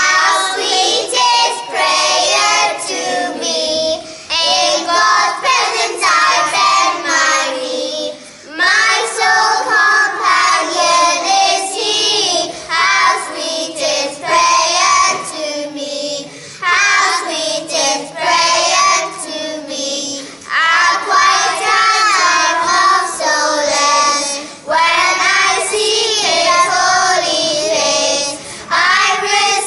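Small choir of young children singing a religious song together, in phrases of about four seconds with short breaks between them.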